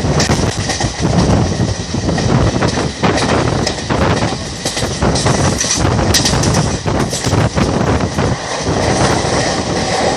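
Wheels of an Indian Railways passenger coach running at speed over the track: a steady loud rumble and rattle, broken by irregular clacks and knocks from the rails.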